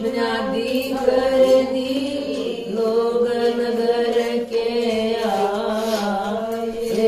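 Women's voices singing a Haryanvi bhajan, a devotional folk hymn, in a chanting style with long held notes that bend slightly in pitch.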